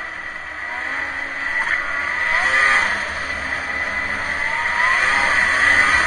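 Snowmobile engine running under throttle, its pitch rising twice as it speeds up, over a steady high whine, heard through an action camera's waterproof case.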